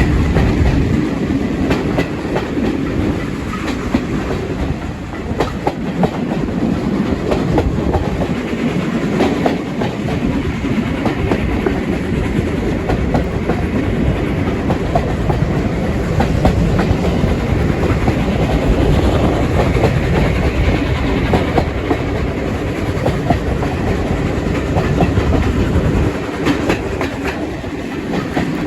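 Steam-hauled heritage train running steadily, with a continuous rumble and repeated wheel clicks over the rail joints.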